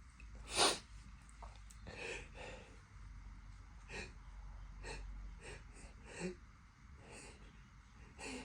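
A person's short sniffs and catching breaths, about seven of them, the loudest about half a second in. The nose is tickled by a strong candle scent, building up to a sneeze.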